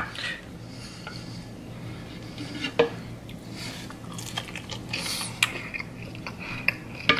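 A person biting into and chewing a chicken tender, with a few sharp clicks of a plate being handled.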